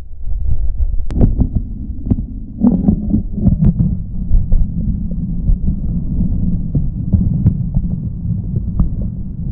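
Underwater sound picked up by a submerged camera in a shallow rock pool: a steady low rumble of surging water, with scattered clicks and knocks.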